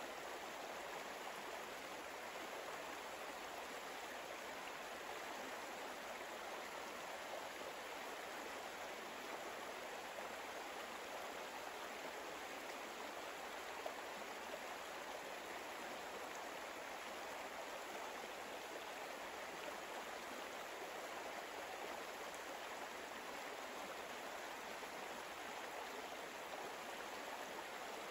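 Faint, even rushing noise like running water, with no changes in it.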